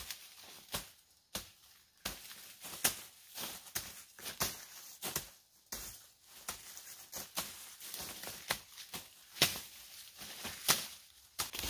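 Dry corn stalks being hacked with a short knife and pulled down by hand, the brittle leaves and husks crackling and rustling. The strokes come irregularly, several to a second at times, with short pauses between.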